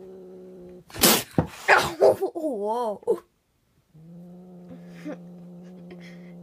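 A frightened cat growling low and steady, breaking off about a second in into louder yowling that wavers up and down in pitch, then after a brief pause the low, steady growl starts again: a defensive, scared cat.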